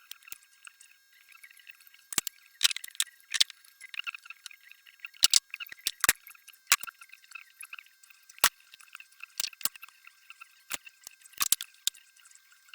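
Metal hand tools clicking and clinking against engine parts: irregular sharp clicks, some in quick pairs, with no steady rhythm.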